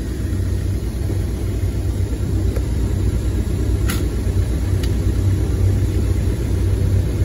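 Ford Focus Mk2 2.0 TDCi diesel engine idling steadily, heard from inside the car with a door open. Two light clicks come about four and five seconds in.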